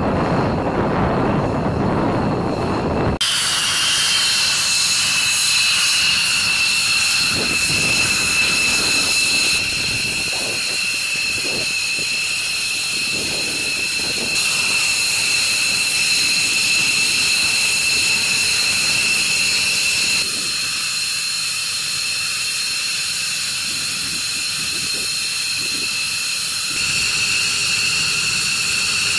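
Wind rumbling on the microphone for about the first three seconds, then a steady high-pitched whine of F-15E Strike Eagle jet engines running on the ground, stepping slightly up or down in level a few times.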